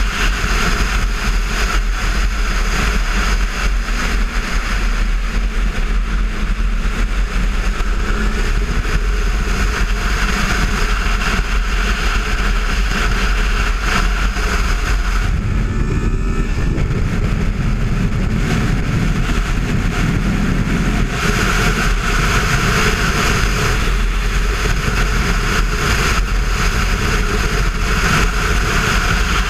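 Wind rushing over the microphone of a Kawasaki Versys 650 motorcycle riding at road speed, with the bike's parallel-twin engine running underneath. From about 15 to 21 seconds in, the high hiss eases and the lower engine sound comes forward.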